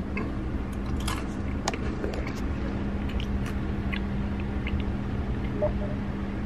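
Crunchy mini pretzels being chewed close to the microphone: a run of sharp crunches in the first couple of seconds, then fainter chewing crackles. A steady low hum runs underneath.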